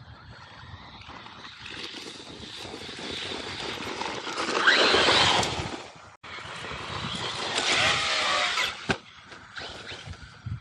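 Electric RC monster truck driving hard in two bursts, its motor whine rising in pitch as it speeds up, with tyre and dirt noise; the first burst cuts off suddenly, and a sharp knock comes at the end of the second, about nine seconds in.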